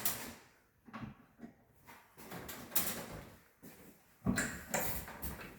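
Scattered knocks and clicks of a kitchen cabinet door and its hinge hardware being handled, with a louder clatter a little past the middle.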